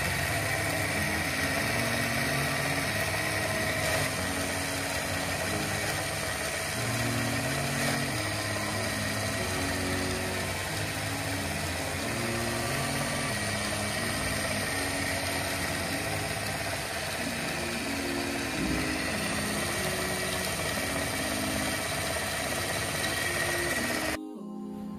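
Small battery-powered motor of a toy stand mixer running steadily, then cutting off suddenly near the end. Background music plays underneath.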